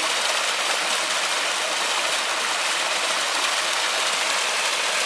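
Heavy rain falling steadily: a dense, even hiss with no single drops or thunder standing out.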